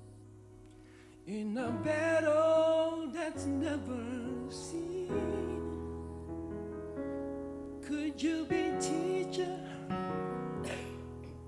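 A solo singer singing a slow gospel song with vibrato over sustained keyboard accompaniment. The voice comes in about a second in.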